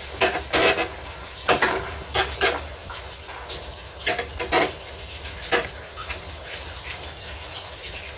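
Kitchen utensils and cookware clinking and knocking together: about ten sharp, irregular clinks over a low steady hum.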